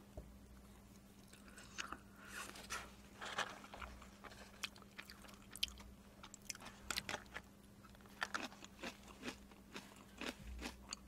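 Close-miked mouth sounds of someone chewing a mouthful of spicy jjajang stir-fried instant noodles: soft, irregular wet clicks and smacks, starting about two seconds in and coming several a second at times.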